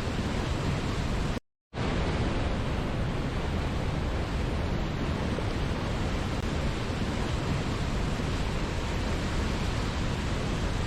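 Steady rush of a waterfall, an even wash of noise heaviest in the low end. It drops out to total silence for a moment about a second and a half in, then resumes unchanged.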